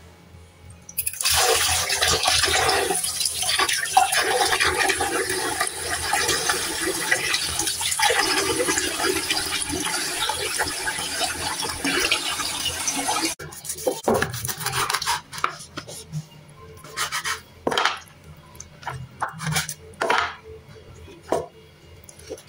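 Tap water running over raw chicken in a steel bowl in a sink as the pieces are rinsed by hand; the water cuts off suddenly about halfway. Then scattered knocks and taps of a kitchen knife on a wooden cutting board as the chicken is cut.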